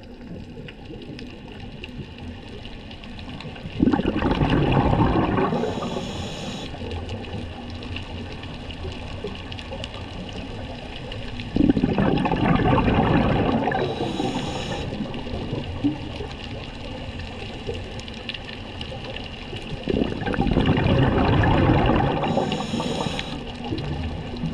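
Scuba diver breathing through a regulator underwater: three loud rushes of exhaled bubbles about eight seconds apart, each lasting two to three seconds, with a quieter hiss between breaths.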